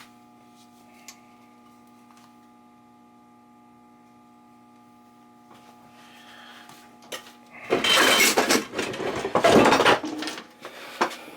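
Faint steady electrical hum, then from about three-quarters of the way in roughly three seconds of loud, uneven rustling and scraping from hands working the wires.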